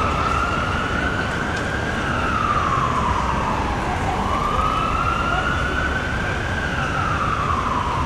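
Emergency vehicle siren on a slow wail, its pitch rising and falling about every four seconds, over the low noise of street traffic.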